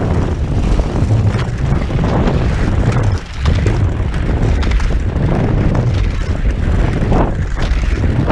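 Wind buffeting the microphone of a body-worn camera during cross-country skiing: a loud, steady low rumble that lets up briefly about three seconds in, with the skis gliding over crusty snow underneath.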